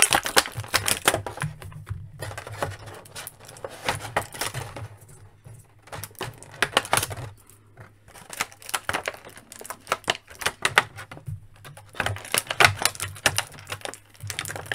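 Clear plastic blister packaging crinkling and crackling as it is handled, with small clicks of hard plastic action-figure parts, coming in irregular clusters with brief pauses.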